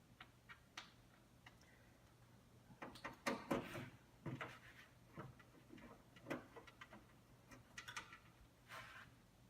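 Scattered small clicks and short scrapes of metal parts and screws being handled inside a desktop computer case while the motherboard is unscrewed, loudest about three to four seconds in.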